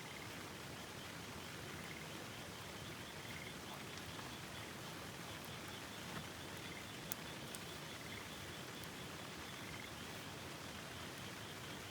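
Steady rush of river water with frogs calling, short trills repeating every second or so over the water noise. A few faint sharp clicks about four and seven seconds in.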